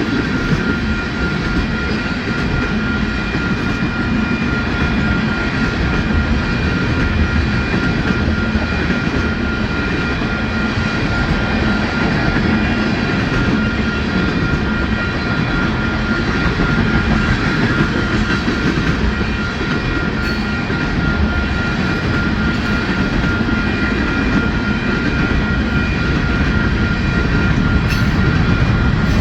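Mixed freight train's cars rolling steadily past, with a continuous rumble of wheels on rail and a steady high ringing tone running through it.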